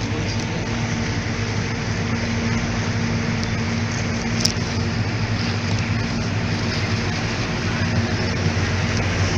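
Motorboat engine running steadily under way, a constant low hum over an even rushing noise. A single short sharp click sounds about four and a half seconds in.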